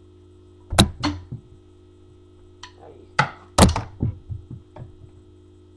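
Drumsticks with metal shafts and plastic covers knocking and clattering in sharp clacks. There are two loud ones about a second in and a few more in the middle, the last followed by a quick run of smaller knocks dying away.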